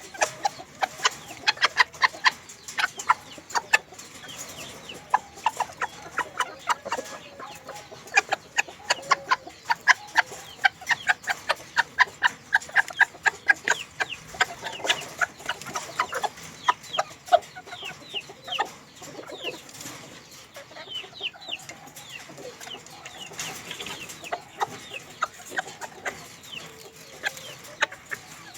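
Bantam chickens clucking, with many short, sharp sounds several times a second and brief chirping calls in the second half.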